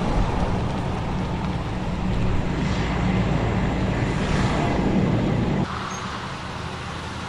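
An SUV driving along a residential street: a steady rush of engine and tyre noise that drops off abruptly about five and a half seconds in.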